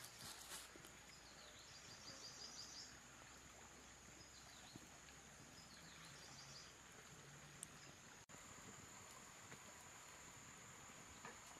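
Near silence: faint outdoor ambience with a steady high-pitched insect drone and a few short bird-like chirps.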